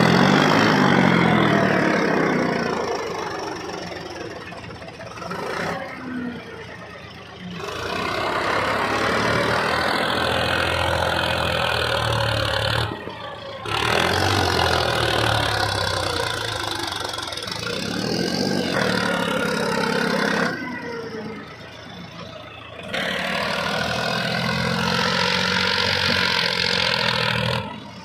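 Powertrac Euro 50 tractor's diesel engine running under load as it pulls through deep wet mud, its note rising and falling. The sound drops away briefly three times.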